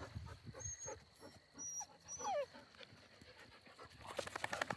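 A Labrador retriever gives one short whine, falling in pitch, about two seconds in, and pants quickly near the end.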